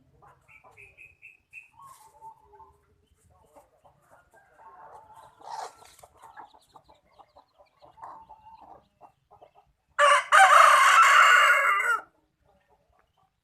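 Free-range village chickens (ayam kampung) clucking softly, with a few short high peeps near the start, then a rooster crowing loudly for about two seconds near the end.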